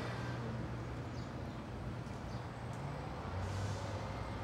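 City street ambience: a steady low rumble of traffic with a faint engine drone that drops slightly in pitch about three seconds in.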